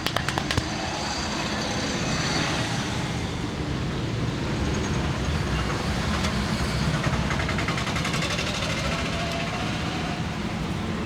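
Steady rumble of road traffic from a busy street, with a quick run of sharp taps that stops within the first second.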